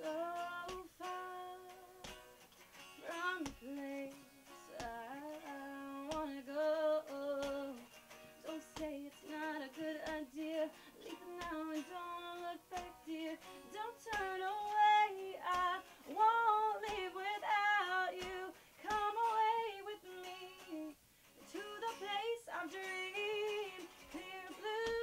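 A live band rehearsing a pop song: a woman singing a held, gliding melody over electric guitar, with a steady beat.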